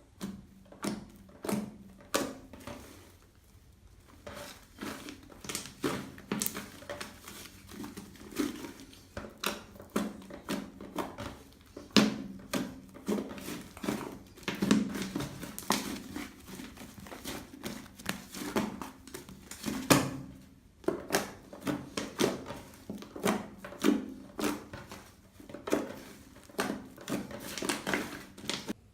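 Homemade toothpaste slime being squeezed and kneaded by hand, giving an irregular run of sticky squelches, clicks and small pops, a few sharper ones about 12 and 20 seconds in.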